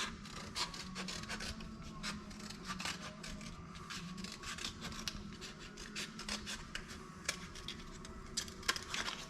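Scissors snipping through a paper cup in many short, irregular cuts, over a low steady hum.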